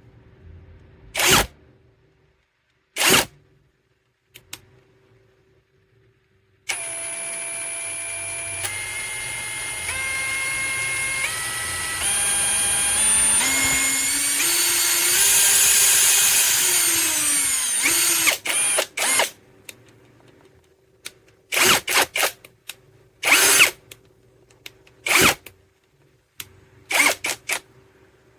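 Brushless cordless impact wrench run free, without load: two short trigger blips, then about eleven seconds of steady motor running whose pitch climbs in several steps and then winds down, followed by a string of short bursts.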